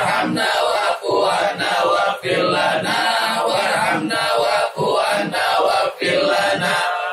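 Men's voices chanting an Islamic devotional recitation together, phrase after phrase with only brief breaths between.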